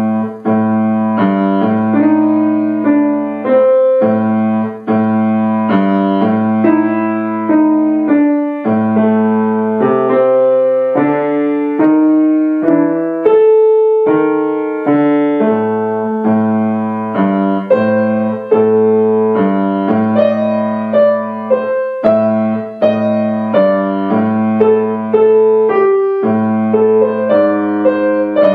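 Grand piano played by a child: a simple tune in the right hand over a low bass note and chords that keep returning, at an even, unhurried pace.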